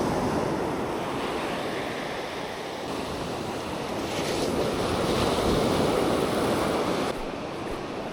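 Ocean surf washing onto a beach, with wind buffeting the microphone. The surf swells up a few seconds in, then drops off sharply near the end.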